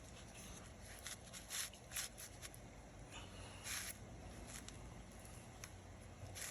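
Faint, scattered short scrapes and clicks from a tire plug tool being screwed down with an Allen wrench, driving a mushroom plug through the tire's puncture.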